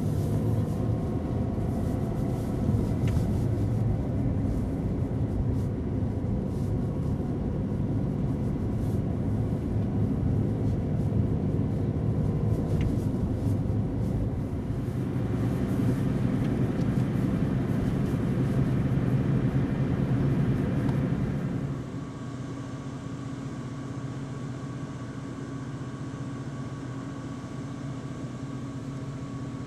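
Car engine and road noise heard from inside the cabin, a steady low rumble. About three quarters of the way through it drops suddenly to a quieter, steadier hum.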